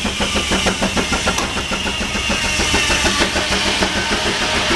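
Case steam traction engine driving a sawmill, its exhaust beating quickly and evenly at about six beats a second, with a high steady whine over it. The beats blur into a smoother running sound after about three seconds.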